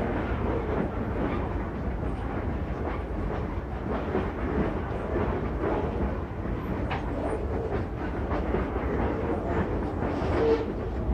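Loaded freight gondolas rolling past: a steady rumble of steel wheels on rail with scattered clicks and clanks from the wheels and couplers. A short squeal comes near the end.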